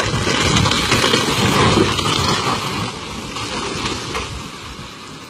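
Loaded cargo truck rolling over and tumbling down an embankment: a heavy, noisy rumble of the crashing body and spilling load, with a few knocks, loudest in the first two seconds and then fading.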